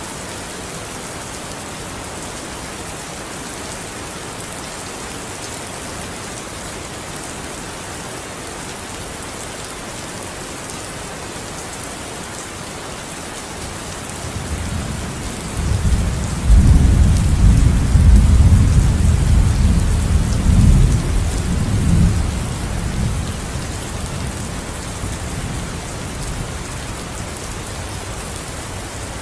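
Steady rain falling. About halfway through, a deep roll of thunder swells in, rumbles for several seconds and fades away.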